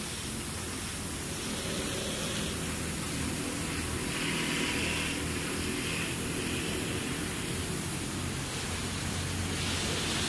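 Steady outdoor background hiss with a low hum underneath that grows louder near the end.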